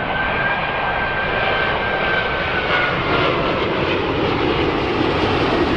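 Aeroplane engine sound: a steady rushing drone with a faint high whistle that slowly drops in pitch.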